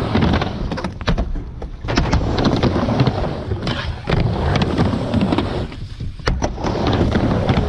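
Skateboard wheels rolling over skatepark ramp surfaces, a steady rumble, with several sharp clacks of the board as it pops an ollie and lands in the second half.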